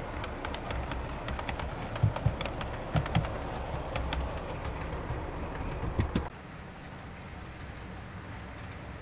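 Model railway train running along the track: a steady low rumble of the wheels with irregular sharp clicks as they cross rail joints. It cuts off abruptly about six seconds in, leaving a quieter steady hum.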